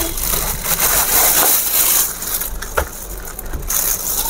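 Clear plastic bag crinkling and rustling as a demolition hammer is pulled out of it, loudest in the first two seconds, then softer with a couple of light knocks.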